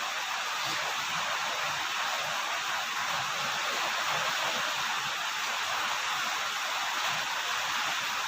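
Rain falling steadily, an even hiss with faint irregular drips underneath.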